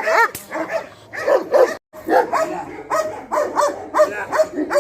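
Dog barking in a fast, continuous run of short barks, about three a second, broken by a brief gap about two seconds in.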